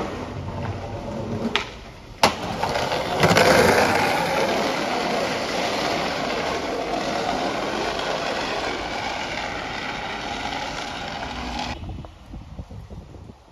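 A sharp skateboard impact about two seconds in, then skateboard wheels rolling on rough asphalt, a loud even rumble for about eight seconds that stops suddenly.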